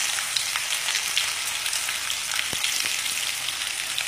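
Sliced onions sizzling in hot mustard oil in a wok: a steady hiss with scattered small crackles.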